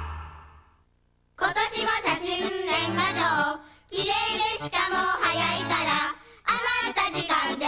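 A short musical tail fades out, and after a moment of near silence a high voice sings three short phrases over music.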